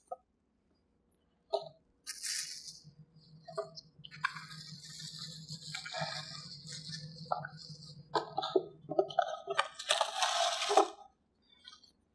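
Plastic cling wrap crinkling and rustling in irregular bursts as it is pulled from its box and pressed over a pie plate, loudest about ten seconds in.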